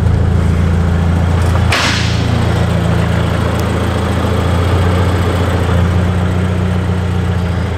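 Car engine idling steadily with a deep, constant hum. About two seconds in there is a short hiss.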